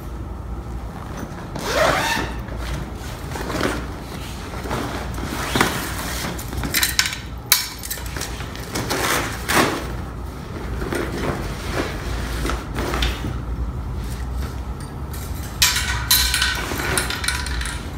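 Handling noise as a fabric carry bag is opened and a metal speaker stand is pulled out and moved: rustles and scattered knocks, then denser metallic clinking and rattling over the last couple of seconds, over a steady low hum.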